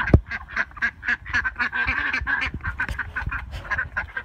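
A flock of domestic ducks quacking rapidly and continuously as they hurry along, a busy chatter of short overlapping calls. A low thump sounds right at the start.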